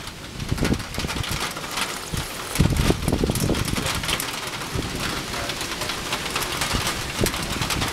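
Storm of heavy rain and hail pelting down, a dense hiss full of sharp ticks from hailstones striking. Low rumbles come and go, the strongest from about two and a half to three and a half seconds in.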